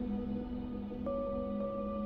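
Generative ambient music from a VCV Rack 2 software modular synthesizer patch: a steady low drone under sustained tones, with a new higher note coming in about halfway through.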